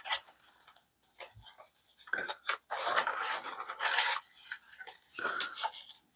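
Scraping, rubbing and clicking as a belt is taken off a Work Sharp belt knife sharpener and a cloth stropping belt is fitted. The noise comes in short bursts with a few sharp clicks, busiest in the middle.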